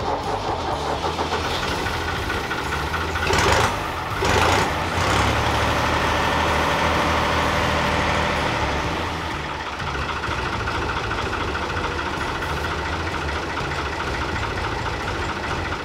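1982 Fiat 440 tractor's diesel engine running just after starting, now that the fuel filter has been changed and air bled from the fuel system. There are two short louder bursts a few seconds in, then it settles to a steady run.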